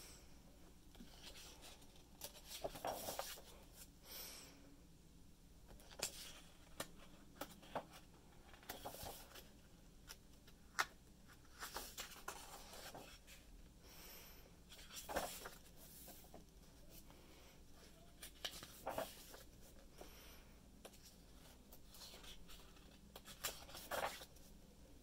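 Pages of a large art book turned by hand: faint paper rustling and brushing every few seconds.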